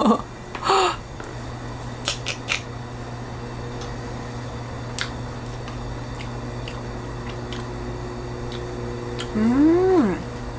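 A person eating a spoonful of rice soaked in crab-shell juices: a few sharp mouth clicks and quiet chewing over a steady low hum, then a pleased "mmm" that rises and falls in pitch near the end.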